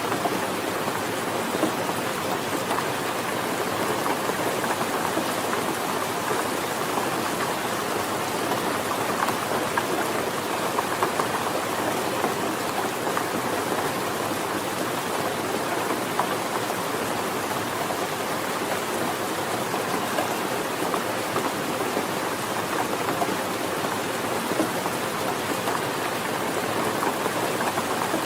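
Steady heavy rain falling, a dense even hiss of drops pattering on a surface, with no let-up.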